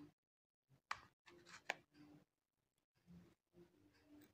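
Near silence with a few faint clicks of a plastic card working under the glued plastic back cover of a Samsung Galaxy A20, the sharpest about a second in and just under two seconds in; the heat-softened adhesive is letting go without force.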